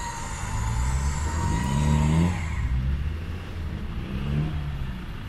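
An electric recovery winch whines under load, its pitch sagging slightly before it stops a little over two seconds in, as it drags a mud-stuck 2020 Land Rover Defender free. Under it the Defender's engine rumbles and revs up twice.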